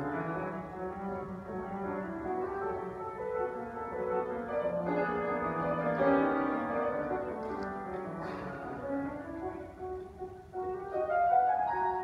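Solo grand piano played live, a piece of held notes and chords that change every second or so.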